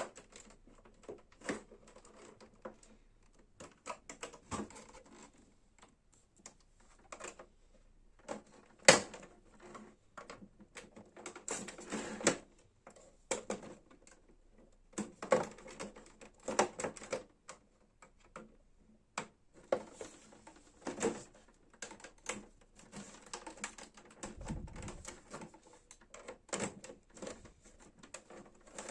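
Irregular clicks, taps and rattles of plastic parts on a Brother printer being handled and worked on. They come in uneven clusters with short pauses between them, and one sharp click about nine seconds in is louder than the rest.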